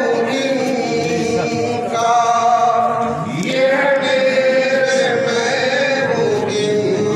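Male voice chanting a manqabat, a Sufi devotional song in praise of a saint, in long drawn-out melodic phrases with notes held for a second or more.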